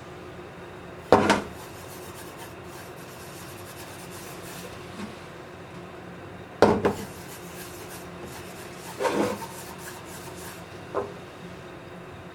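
Four short scrapes and knocks of a kitchen utensil against cookware, over a low steady background.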